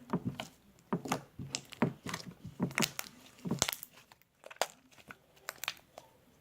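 Slime being squeezed and pulled by hand, making irregular sharp clicks and pops. The clicks come thick at first and thin out over the last couple of seconds.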